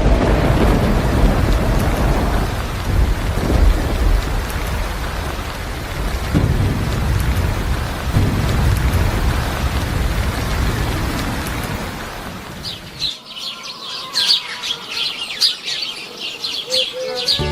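Rain falling with rolling thunder rumbles. About two-thirds of the way through, the rain and thunder stop and birds chirp rapidly.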